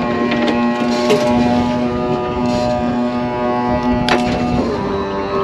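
Boat's outboard motor running steadily under way, with a sharp knock about four seconds in and its note shifting near the end.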